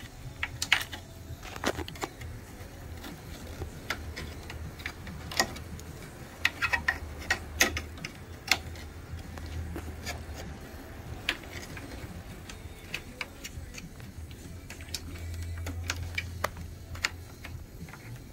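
Scattered sharp clicks and light knocks of plastic and metal parts being handled in an opened impact printer as its drive belt and gears are fitted, with a busier run of clicks about halfway through, over a steady low hum.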